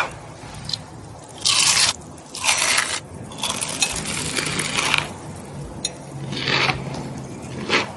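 Eating noises: a run of about five short, rough bursts, crunching and scraping sounds of food and utensils, the longest lasting a second or more in the middle.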